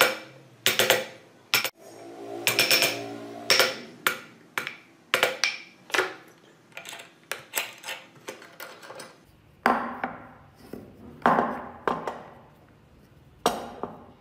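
Metallic clinks and clanks from a metal C-clamp: its sliding handle bar knocks against the screw as the screw is turned, with a wooden wheel knocking on the metal. From about nine seconds in the knocks are duller, as the carved wooden wheels are handled against the clamp and each other.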